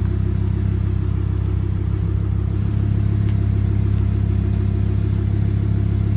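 Lamborghini Gallardo V10 idling steadily, heard close behind at the exhaust tips.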